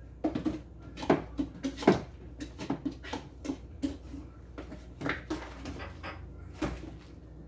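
A dog making short, irregular yips and whimpers, mixed with the clatter of jars and containers being handled.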